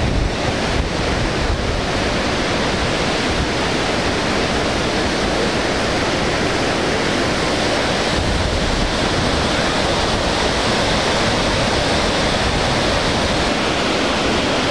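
Steady, loud rushing roar of a large waterfall.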